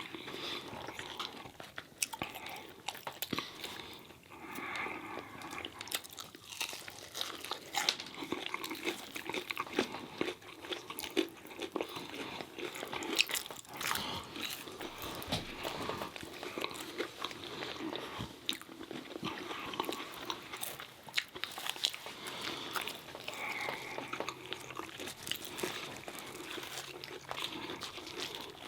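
Close-miked chewing and biting of fried fast food: wet mouth sounds with irregular crunchy clicks as breaded chicken tenders and fries are eaten.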